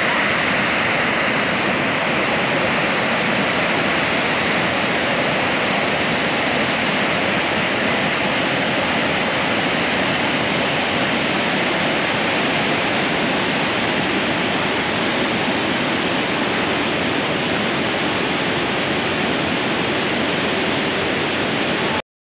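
Grand Falls waterfall in heavy flow: a steady rushing noise of water pouring over the falls and churning through the rocky gorge, which cuts off suddenly near the end.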